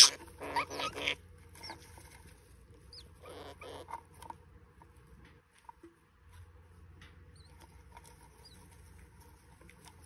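Budgerigars chattering and squeaking, loud in the first second and again around three to four seconds in, then only faint short chirps and small clicks.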